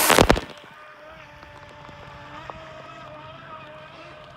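A brief loud rush at the very start, then the steady, slightly wavering whine of a small RC boat motor running.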